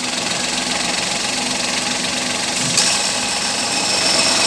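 Suzuki Alto 800's three-cylinder petrol engine idling steadily while warming up, a quiet even hum. About three seconds in a short click is followed by a faint high whine, and the running grows a little louder.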